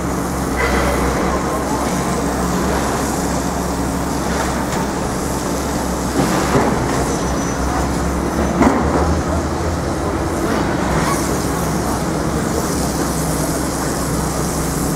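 Steady city street traffic noise, a continuous low rumble. A couple of brief louder knocks come about six and a half and nine seconds in.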